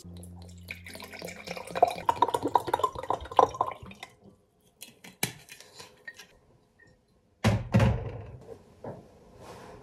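Hard objects being handled: about three seconds of clinking and tapping, a single sharp click, then a dull, heavy thump near the end.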